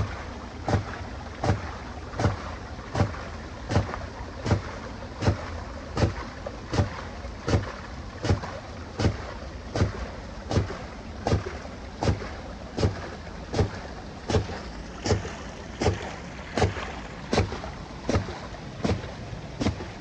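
Cast-iron Vulcan hydraulic ram pump cycling: its waste valve slams shut with a sharp knock about every three-quarters of a second, over the steady rush of water spilling from the valve.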